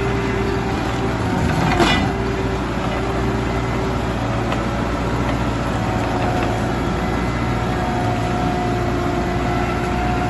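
Industrial stump grinder running: a steady mechanical drone with a low hum and a constant whine, and a short knock about two seconds in.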